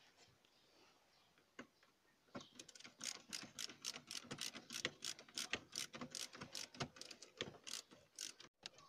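Ratcheting screwdriver clicking in quick, even strokes as a screw is turned out, several clicks a second. The clicking starts about two and a half seconds in and stops just before the end.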